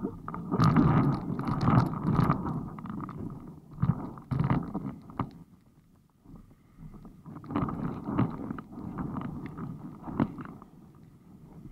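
Muffled water slapping and knocking against a windsurf board as it sails through chop, heard through an action camera on the board. It comes in two uneven bouts with a short lull between them.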